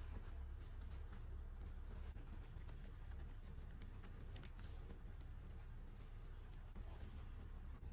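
Faint rustling and small scattered clicks of hands handling a plastic fashion doll and fitting a satin and tulle doll dress, fingers working a small fastening, over a low steady hum.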